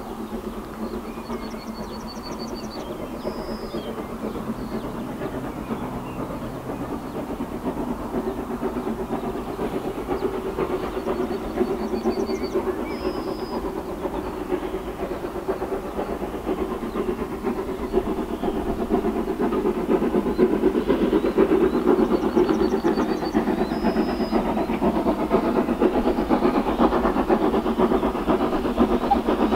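LSWR Urie S15 4-6-0 steam locomotive approaching under steam, its exhaust growing steadily louder as it comes closer. A small bird sings a short high song three times, about ten seconds apart.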